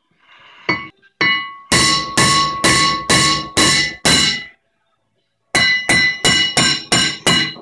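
Steel hammer striking a rusted-on cast-iron rear brake rotor, the rotor ringing like a bell after each blow. Two lighter taps, a steady run of six heavy strikes about two a second, a short pause, then a faster run of blows. It is the rotor seized to the hub being knocked loose.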